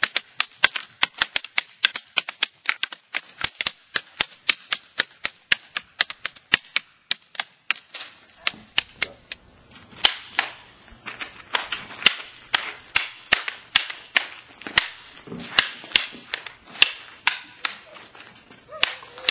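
Escrima sticks clacking against each other in a fast partner drill: sharp wooden strikes at about four a second, keeping up a steady rhythm throughout.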